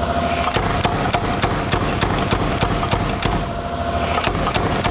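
Power hammer pounding a red-hot steel bar at about four blows a second, drawing out a taper on its end, over a steady mechanical hum.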